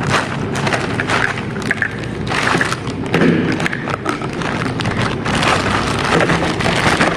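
Rustling and crinkling of packaging being handled, an irregular crackle of many small noises, as pump accessories are unwrapped.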